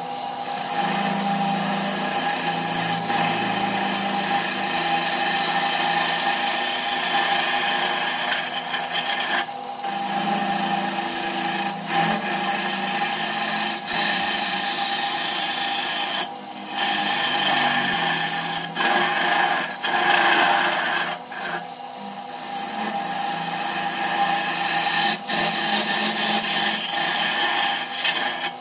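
A hand-held turning tool hollowing out the inside of a wooden vessel spinning on an electric wood lathe: a continuous rasping cut as shavings fly off. The cut drops out briefly a few times, at about 9, 16 and 21 seconds, over a steady machine hum.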